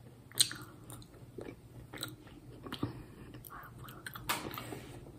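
Close-miked chewing of a soft, gummy red juju sweet: irregular mouth clicks and smacks.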